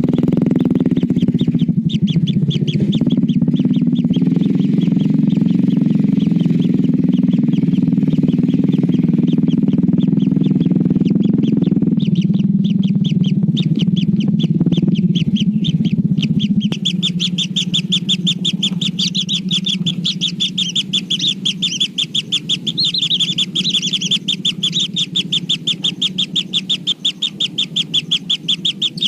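Kingfisher chicks calling in a rapid, continuous chirping train, many chirps a second. A steady low hum runs under it and stops about halfway through, leaving the chirping louder and clearer.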